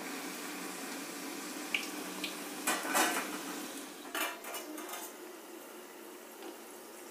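Poori deep-frying in hot oil in a kadai, a steady sizzle, with a perforated steel skimmer clinking and scraping against the pan around three seconds in and again between four and five seconds in. The sizzle grows quieter over the last couple of seconds.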